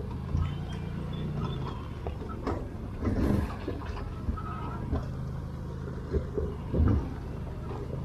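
ATV engine running steadily as the quad crawls down a rocky trail, with knocks and rattles from the machine jolting over rock, the heaviest about three seconds in and again near the end.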